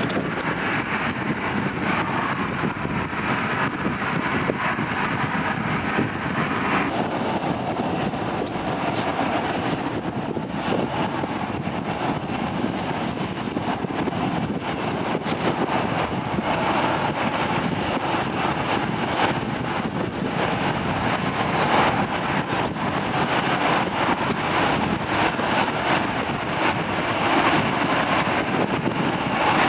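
Jet airliner engines running as an Airbus A320 taxis, heard through strong wind on the microphone: a steady, dense rush with no clear tone.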